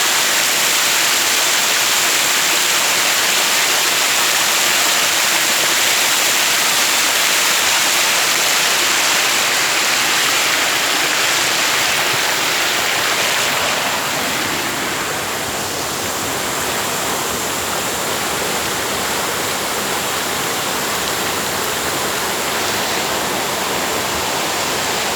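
Waterfall rushing, a dense steady roar of falling water that eases slightly in loudness a little past halfway.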